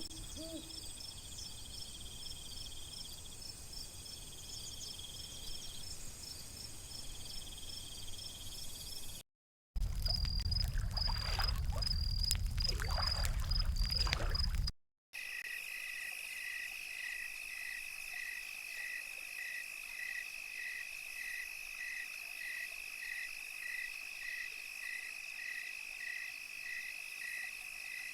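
Night-time chorus of chirping insects such as crickets, with frogs, heard as steady shrill trills and rapidly pulsed chirps. It is made of three spliced recordings with brief gaps of silence between them. The middle one has a loud low rumble beneath the chirping, and the last has a chirp repeating about one and a half times a second over a steady trill.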